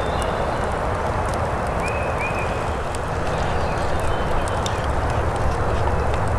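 Wooden spoon stirring coffee in a wooden kuksa cup, a few faint light knocks over a steady even hiss. Two short chirps about two seconds in.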